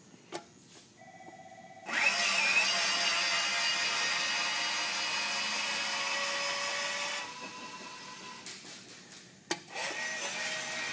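A push-button click, then the electric drive motor of a safety-crossing barrier arm starting with a short rising whine and running for about five seconds as the arm swings, cutting off abruptly. After a few clicks, a quieter motor run starts near the end.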